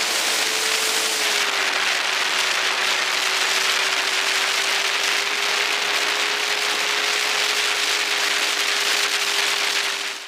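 Steady rush of wind over a camera mounted on a flying radio-controlled scale warbird, with the model's motor and propeller whining underneath on one steady note that dips slightly in pitch about a second and a half in.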